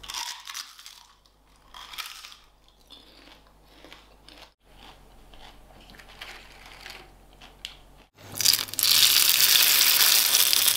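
Crisp puffed crackers crackling and crunching in short spurts as they are handled. About eight seconds in, a loud, steady sizzle starts as a thin cracker sheet fries and puffs up in hot oil.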